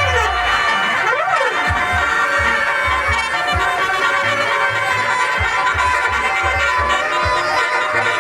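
Telolet basuri bus horns playing a tune: several steady horn tones sound together like a drone, with pitch glides near the start and about a second in, over deep irregular thumps.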